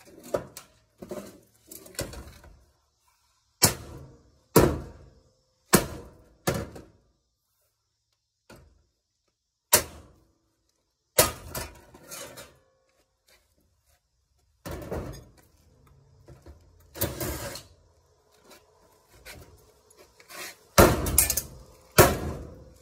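Irregular metal knocks and clanks, some with a short ring, from a washing machine being dismantled. The strikes are spaced a second or so apart, with a louder cluster near the end.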